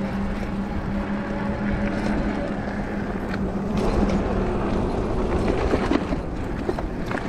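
E-bike riding on a paved path: a low rumble of wind and tyres, with a steady electric motor hum that drops away about two and a half seconds in.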